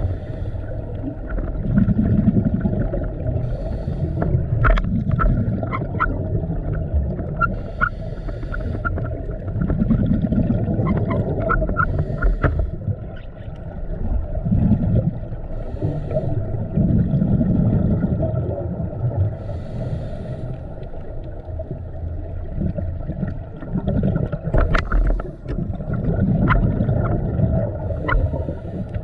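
Muffled underwater sound through a camera housing: a scuba diver's regulator breathing, the exhaled bubbles rumbling in slow swells every two to three seconds, with scattered sharp clicks.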